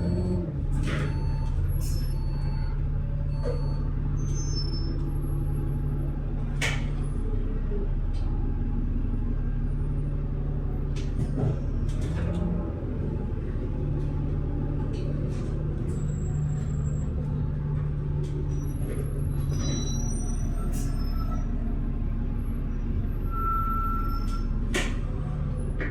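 Bus engine running steadily with a low drone, heard from inside the passenger cabin, with scattered short clicks and rattles.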